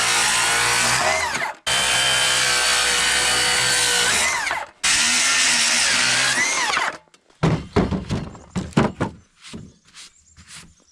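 A handheld power tool shaving the live edge off birch boards, run in three bursts of two to three seconds, each winding down with a falling whine as it is let off. Then a few seconds of irregular knocks and clatter.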